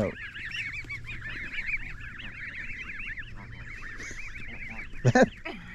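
Canada goose goslings peeping continuously, a chorus of many quick high chirps, with one loud short honk from an adult goose about five seconds in.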